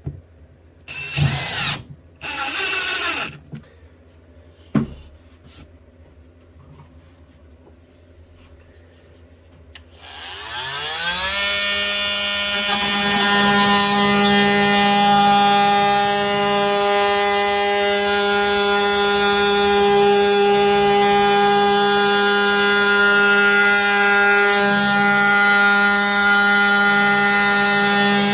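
Milwaukee M18 cordless multi-tool: two brief buzzes and a sharp click in the first few seconds, then about ten seconds in its motor spins up with a rising whine and settles into a steady high-pitched run.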